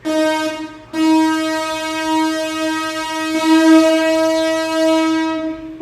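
Synthesized train-horn tone from the Synth One synthesizer app, one steady pitch. It gives a short blast, then a long held blast that starts about a second in.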